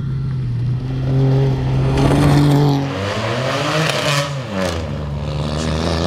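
Turbocharged three-cylinder engine of a Dacia Sandero 0.9 TCe rally car running hard as the car drives past, its pitch rising and then falling about two thirds of the way in.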